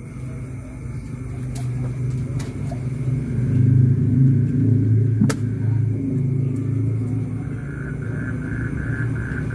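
A vehicle's engine rumbling low, swelling to its loudest about four seconds in and then easing off. A single sharp click comes about five seconds in, and a quick, evenly repeated high pulsing starts near the end.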